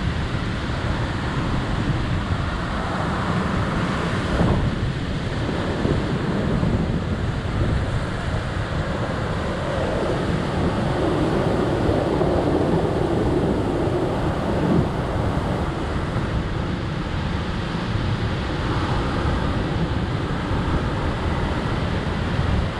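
Wind buffeting the microphone: a steady low rumbling rush, with a louder stretch about halfway through.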